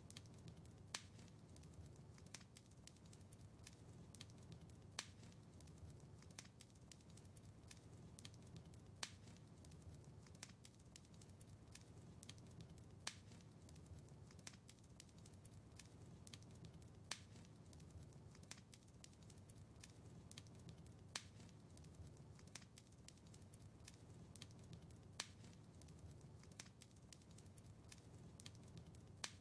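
Faint crackling wood fire: a steady stream of small ticks and snaps with a louder pop about every four seconds, over a low steady rumble.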